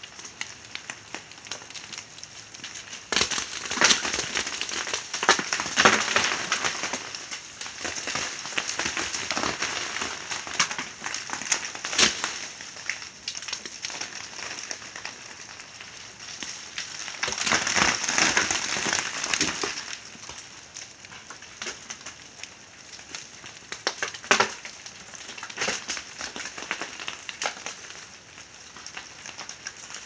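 Ice breaking off thawing, ice-coated tree branches and falling onto crusted snow: a constant crackling patter of small pieces, with heavier showers about three to seven seconds in and again around eighteen seconds, and a few single sharp cracks.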